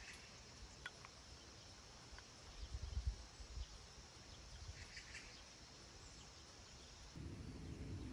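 Faint outdoor ambience: a steady high insect drone with a few short bird chirps and low thumps of wind on the microphone. About seven seconds in, the drone stops and a louder low steady rumble takes over.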